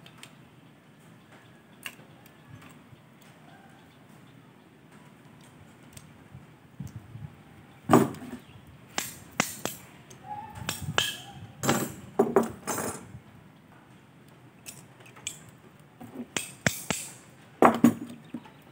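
Metal horseshoes clinking and clattering against each other as they are handled and stacked, with pliers knocking on the metal: a run of sharp metallic clinks about halfway through and another near the end.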